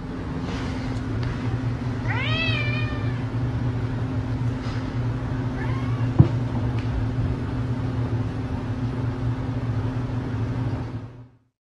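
A domestic cat meows twice: one arching call about two seconds in and a shorter, fainter one near six seconds, followed at once by a sharp knock. A steady low hum runs underneath.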